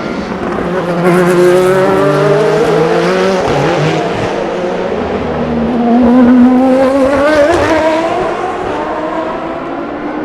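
Endurance race cars going past one after another, their engines rising in pitch as they accelerate. The second pass, about six seconds in, is the loudest.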